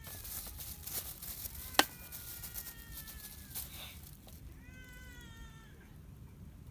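An animal calling twice, each a drawn-out call falling slightly in pitch, about two seconds and five seconds in, with scattered sharp clicks and one loud snap just before the first call.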